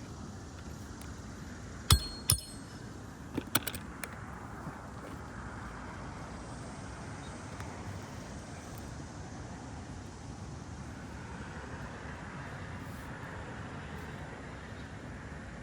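A hammer strikes a steel roof snake, driving a nail under an asphalt shingle: two sharp metallic blows about two seconds in, then a few lighter taps, over a steady background hiss.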